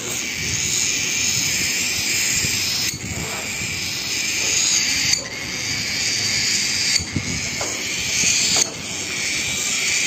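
Young cockatiel's food-begging call: a harsh, hissing rasp kept up in stretches of about two seconds with brief breaks between them, the sound of a hungry chick asking to be fed.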